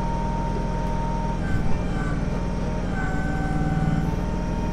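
Kubota BX23S compact tractor's three-cylinder diesel running steadily, with a steady hydraulic whine as the backhoe digs. From about a second and a half in until near the end, the engine works harder and the whine moves to a higher tone as the hydraulics come under load.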